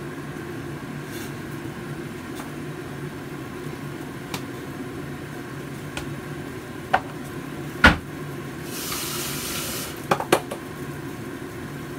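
Scattered clicks and clinks of a metal spoon against a tin and a stainless steel pot, with one sharp knock about eight seconds in, over a steady low hum and soup simmering. A brief hiss follows the knock.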